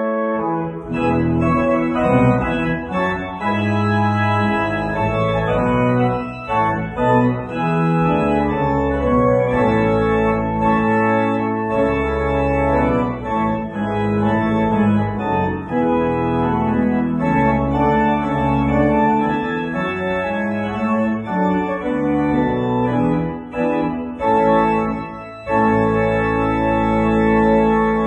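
Pipe organ playing full chords over a moving deep pedal bass, ending on a long held chord.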